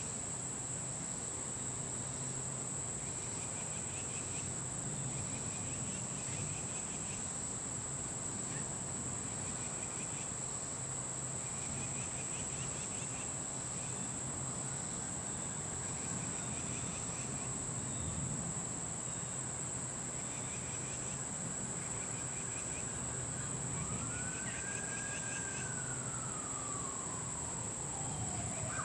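Insects calling in a steady high drone, with short chirping pulses repeating about every two seconds, over a low traffic rumble. In the second half a distant siren wails, rising and falling.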